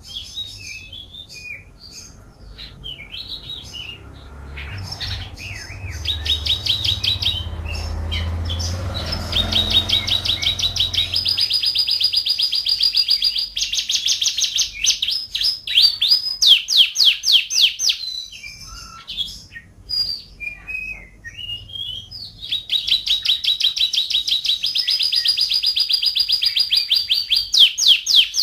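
Domestic canary singing a long, varied song: rapid trills and rolls of fast repeated notes, with changes of pitch and tempo from phrase to phrase. A faint low rumble lies underneath during the first third.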